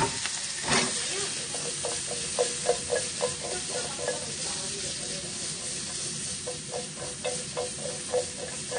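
Red bell pepper pieces sizzling in a non-stick frying pan over a gas flame, with a sharp knock under a second in and runs of light knocks, about four a second, as the pan is shaken back and forth.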